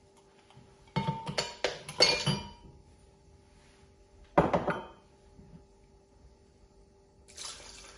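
Ice cubes dropping into a glass blender jar, clinking and clattering in a quick run of strikes about a second in and again briefly about four and a half seconds in. Near the end, water starts pouring into the jar from a bottle.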